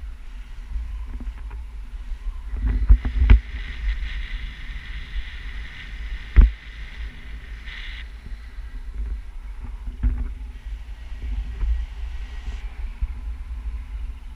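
Wind buffeting an action camera's microphone during a tandem paraglider flight, a steady low rumble, with sharp knocks on the camera about three seconds in and again about six seconds in.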